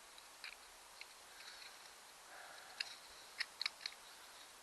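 A few small, sharp metallic clicks, one about half a second in and four or five close together past the middle: loose steel needle-bearing rollers from an outboard connecting rod being handled and put back in place.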